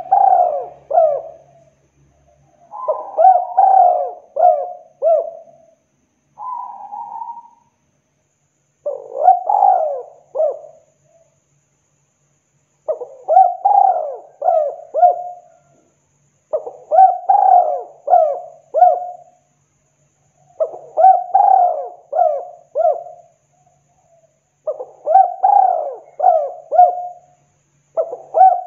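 Spotted dove (tekukur) cooing: a phrase of three to five arching coos, repeated about every three to four seconds with short silences between.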